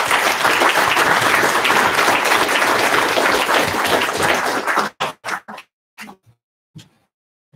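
Audience applauding for about five seconds, then dying away into a few scattered claps.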